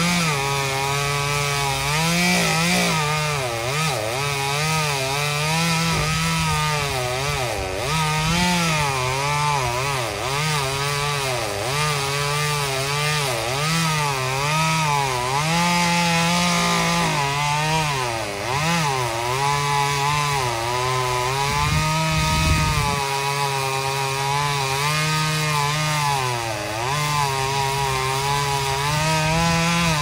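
Gas chainsaw cutting up pecan limbs, its engine pitch rising and dipping again and again as the chain bites into the wood and frees up.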